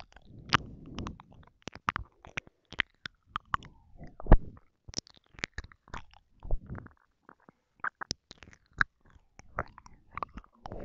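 Close-miked ASMR mouth sounds: wet clicks and lip smacks coming in quick irregular succession, with softer moist stretches between them and a sharper, louder click about four seconds in.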